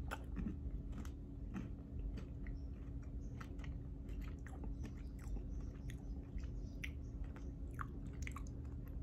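A person chewing a bite of a white-chocolate Fruity Pebbles candy bar, with small, irregular crunches from the crisp cereal pieces inside.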